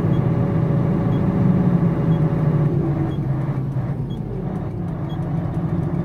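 Mercedes-Benz Actros truck's diesel engine running steadily with the power take-off engaged to drive the concrete pump, heard from inside the cab. It eases off slightly between about three and five seconds in, then comes back up.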